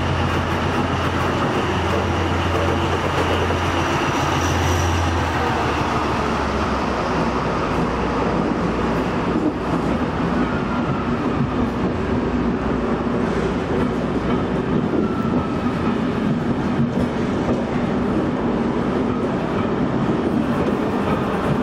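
DB VT 12.5 diesel multiple unit departing: a steady low engine hum for the first five seconds or so, then the noise of the coaches rolling close past, with a few wheel clicks.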